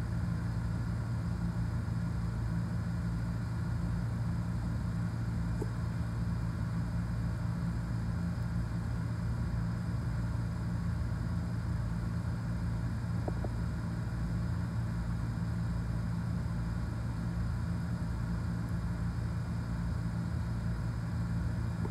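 Steady low mechanical hum, unchanging throughout, like a motor or fan running in the room.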